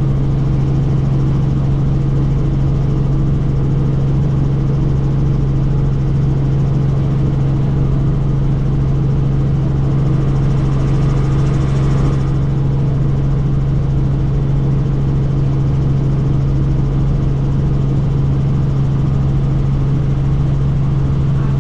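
Helicopter in flight: a steady, unchanging drone of rotor and engine, heard from inside the open-door cabin. A hiss swells briefly about halfway through.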